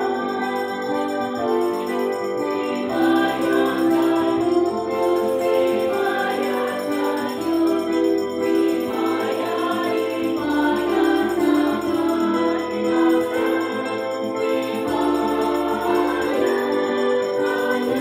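Church music: voices singing over sustained organ-like keyboard chords, the bass note changing every two seconds or so.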